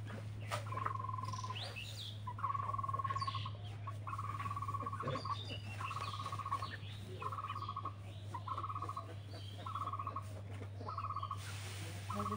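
An animal's trilled call repeated about nine times at an even pace, roughly once a second, each trill under a second long, over a steady low hum.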